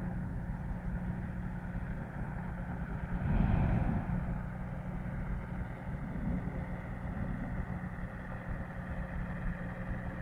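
Engines of hot-air airships droning steadily, with a brief louder rush of noise about three and a half seconds in.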